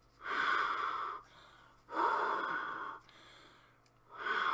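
Breath blown through a hollow tube to imitate storm wind: three long breathy blows of about a second each, with a hollow tone.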